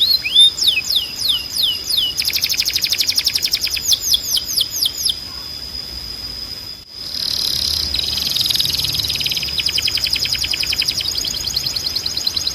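Timbrado canary singing: fast rolling trills and runs of quick sweeping notes over a steady high held tone. The song breaks off briefly a little before seven seconds in, then picks up again with more trills.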